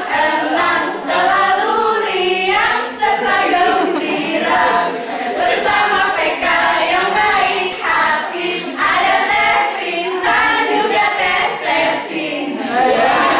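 A small group of young men and women singing a group cheer song together in unison, with voices raised throughout.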